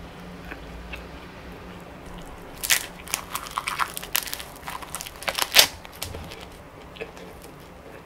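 A sheet of edible coloured paper bitten and chewed: a quick run of sharp, crisp crunches and crackles that starts a little under three seconds in, lasts about three seconds and is loudest at its end.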